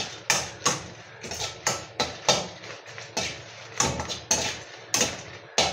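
Steel ladle scraping and knocking against a stainless steel kadai in quick, irregular strokes, about three a second, as dried red chillies are stir-roasted in a little oil.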